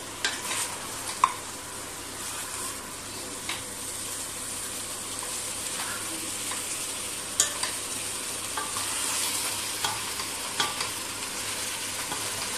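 Chicken pieces sizzling in a stainless steel pot as they fry in the juices they have started to release, stirred with a wooden spatula that knocks and scrapes against the pot in several sharp clicks over a steady hiss.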